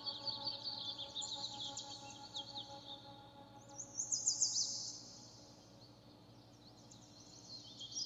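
Small birds chirping in quick runs of short down-slurred notes, loudest about four seconds in, over soft sustained ambient music that fades away during the first half.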